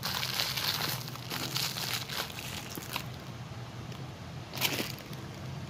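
Clear plastic packaging bag crinkling as a small plastic microphone holder is unwrapped from it, for about three seconds, then a brief rustle near the end.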